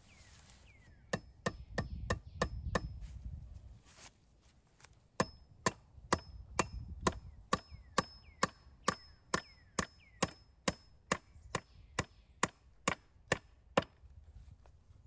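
Back of a steel hatchet hammering a nail into a willow pole: a quick run of blows, a pause of about two seconds, then a long even series of blows at about two to three a second, some with a short metallic ring.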